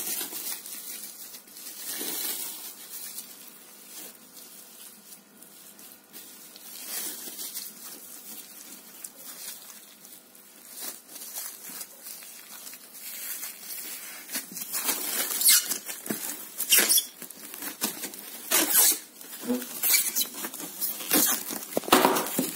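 Plastic cling film crinkling and rustling as hands roll a pork knuckle up tightly in it, with irregular sharp crackles. The crackling grows louder and busier about two-thirds of the way through.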